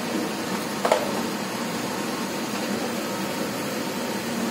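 Cumin seeds tipped from a small bowl into a kadhai with a little hot oil, over a steady hiss. The bowl knocks sharply against the pan about a second in, with a brief ring, and there is a smaller knock near the end.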